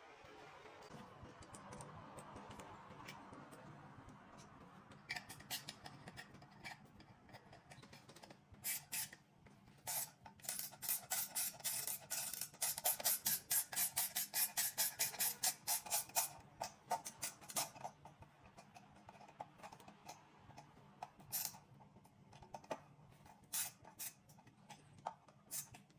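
Small sharp metal clicks of hand tools on screws as the air cleaner assembly is tightened, scattered at first, then coming several a second for a stretch through the middle before thinning out. A faint steady hum runs underneath.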